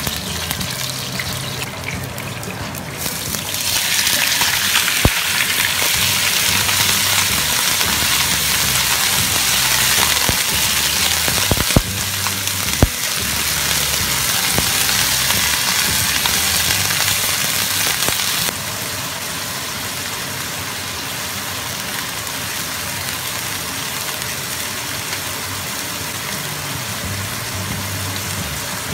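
Raw chicken pieces sizzling in hot oil in a nonstick wok with ginger and garlic, stirred with a spatula. The sizzle jumps up loudly a few seconds in as the chicken goes in, then settles to a quieter, steady frying sound about two-thirds of the way through, with a few sharp knocks of the spatula on the pan.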